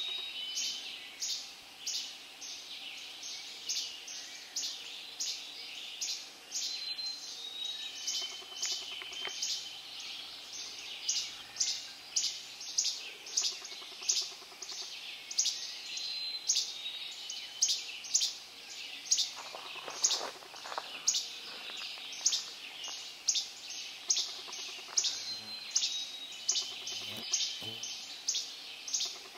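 Dawn chorus of forest songbirds: sharp high chips repeating about twice a second, with a thin whistled song of a few notes stepping down in pitch that comes back every several seconds.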